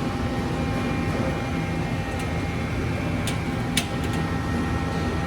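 Mori Seiki NL3000MC CNC lathe running with a steady mechanical hum and faint steady whines, with one sharp click a little under four seconds in.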